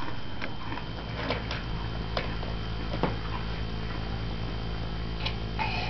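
A toddler drinking from a plastic baby bottle: small, irregular sucking and swallowing clicks over a steady low hum.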